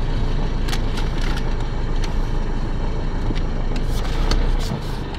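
Car engine and road noise heard from inside the cabin as the car drives, a steady low rumble with a few light clicks.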